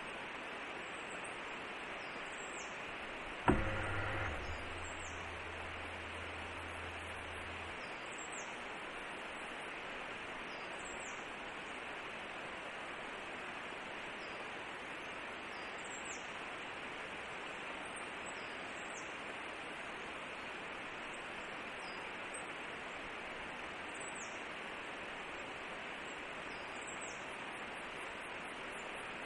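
Steady hiss from an outdoor forest webcam's microphone, with a sharp click about three and a half seconds in followed by a low hum for about four seconds, which fits the camera's pan-tilt mechanism moving it to a new view.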